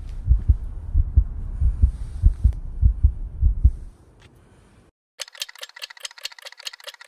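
Heartbeat sound effect: fast, deep thumps in lub-dub pairs that stop about four seconds in. After a short silence comes rapid, sharp ticking, about eight ticks a second.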